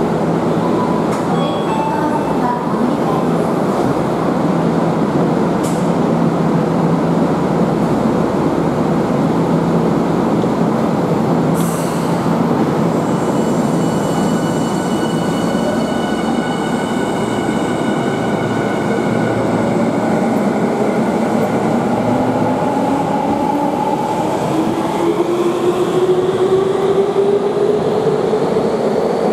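Electric subway train standing at an underground platform, then pulling away. A sharp knock comes about twelve seconds in as the doors shut, with a few seconds of steady high tones after it. In the last several seconds the traction motors' whine rises steadily in pitch as the train accelerates out.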